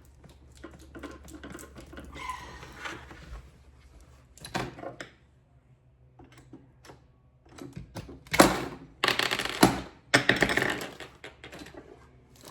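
Plastic and metal parts of a new string trimmer being handled during assembly: a run of small clicks and clatters, with louder handling and scraping noises about eight to eleven seconds in.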